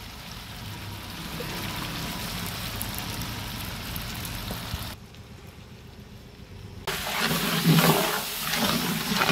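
Chopped vegetables sizzling in hot oil in a large aluminium cooking pot, with steam rising as green chilli sauce is squeezed in. The sizzle is steady, drops away suddenly about five seconds in, and comes back louder and rougher near the end.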